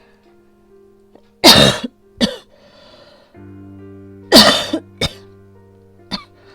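A woman coughing hard: two harsh coughs, each followed by a shorter one, and a last short cough near the end, which she puts down to an asthma attack. Soft background music runs underneath.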